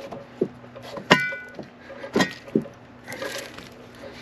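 Rocks knocking against each other and against a steel rod-holder tube as it is wedged among the stones of a riprap bank by hand: about four sharp knocks. The loudest, about a second in, rings briefly like metal.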